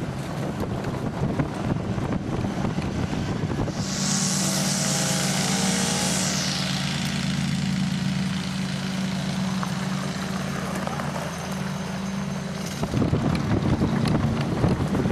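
Wheeled dog-cart rattling over a dirt and gravel trail behind a running sled dog team, with many small knocks. About four seconds in, a steady motor hum takes over, with a loud hiss for its first couple of seconds. The rattling returns near the end.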